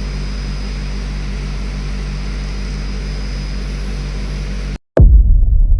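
A steady mechanical drone with a low hum and a faint high whine, which cuts off near the end. After a short break a much louder deep rumble starts.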